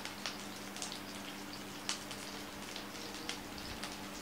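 Small whole onions frying in oil in a non-stick pan: scattered faint crackles and pops at irregular intervals, over a steady low hum.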